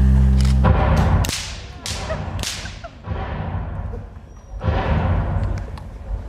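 A held final chord of the choir and accompaniment cuts off under a second in, then gives way to loud, rough bursts of audience cheering and applause that surge several times.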